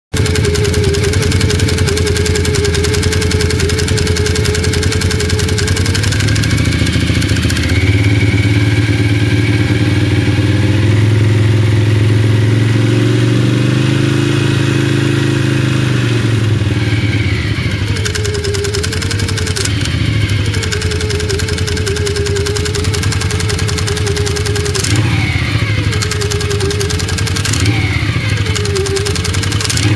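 Can-Am Renegade quad's V-twin engine running with its CVT variator pulleys and drive belt spinning uncovered. The engine is held at higher revs from about 7 seconds to 16 seconds, then given several short throttle blips. The owner is recording a noise he attributes to the variator.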